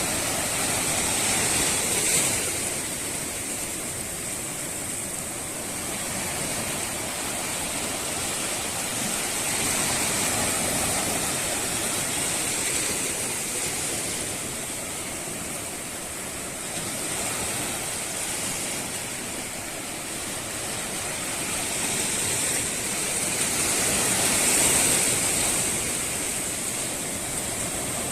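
Rushing water, a steady noise that swells and eases every several seconds, with a thin high hiss on top.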